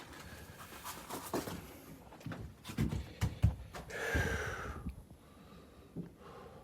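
Several dull knocks and thumps as a snow-blocked gate is handled, then a short breathy hiss a little after four seconds in.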